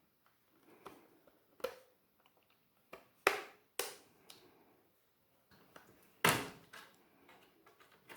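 Plastic retaining clips of a Samsung Galaxy Tab A SM-T580 back cover snapping loose as the cover is pried off: a string of sharp clicks and snaps, irregularly spaced, the loudest about six seconds in.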